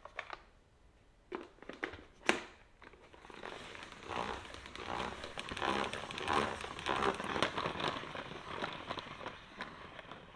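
Plastic salad spinner: a few sharp plastic knocks as it is handled, then, about three seconds in, the basket spinning wet leafy greens dry with a fast rattling whir that fades near the end.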